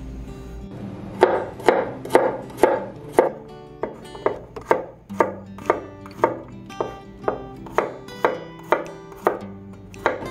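Kitchen knife slicing garlic cloves thinly on a wooden cutting board: the blade knocks sharply on the board about twice a second, starting about a second in.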